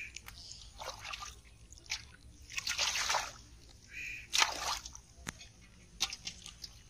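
Hands splashing and sloshing in shallow muddy water in several short bursts, the sharpest about halfway through, as a carp is grabbed and put into an aluminium pot of water.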